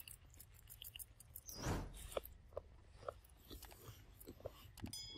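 Faint crunching and clicking of a macaque chewing, with a brief louder swish about two seconds in.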